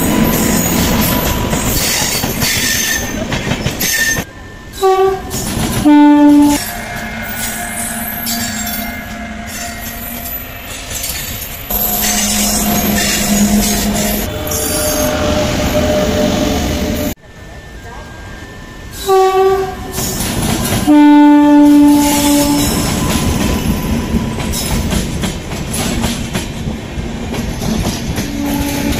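Indian Railways trains passing close at speed, wheels rumbling and clattering over the rail joints. Twice, an electric locomotive's two-tone air horn sounds, a short higher note followed by a longer lower one. These horn notes are the loudest sounds.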